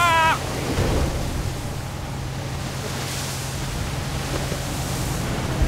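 Storm seas breaking over a crab boat's deck: a steady rush of seawater and spray with wind, over a low steady hum. A short shout comes at the very start.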